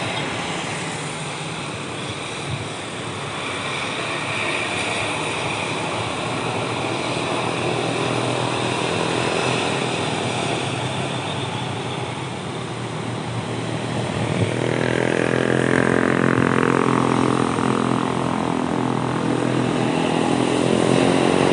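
Diesel tour bus engine running under load on a steep climb, a steady drone. About two-thirds of the way in a bus engine grows louder, its note rising as it revs up the hill.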